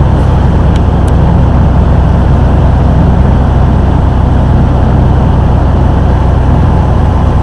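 River tour boat's engine running steadily from on board, a loud low drone with the rush of water and air along the hull.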